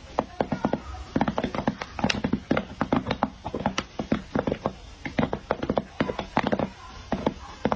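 Popcorn kernels popping in a large metal wok over a wood fire, with irregular sharp pops coming several times a second.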